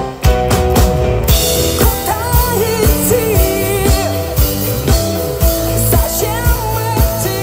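Live rock band playing with a steady drum beat and bass guitar; a woman starts singing about a second in.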